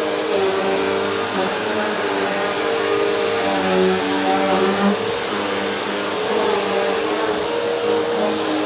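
Vacuum cleaner running steadily with a constant motor whine and airflow hiss, its pitch wavering slightly as it is moved over the floor.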